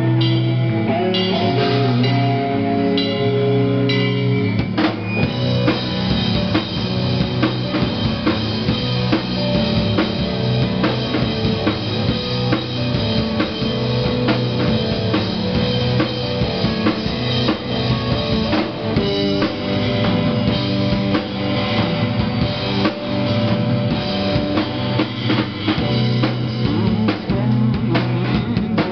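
Live rock band playing an instrumental passage: amplified electric guitars over a drum kit, with the drumming turning dense and driving about five seconds in.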